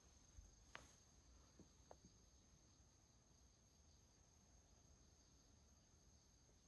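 Near silence: room tone with a faint, steady high-pitched hum and a few faint clicks in the first two seconds.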